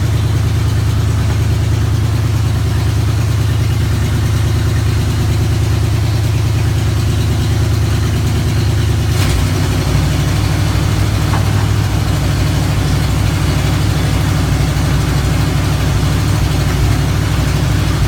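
1968 Chevrolet El Camino engine idling steadily. About nine seconds in there is a click and the idle settles into a slightly different, lower note.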